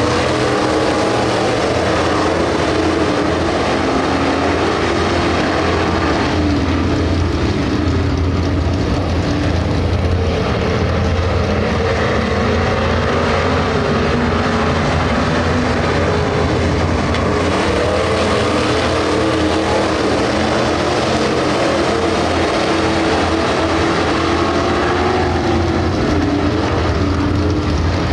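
A pack of dirt track race cars running laps on a clay oval, their engines blending into one loud, steady sound whose pitch rises and falls as the cars go round the turns and down the straights.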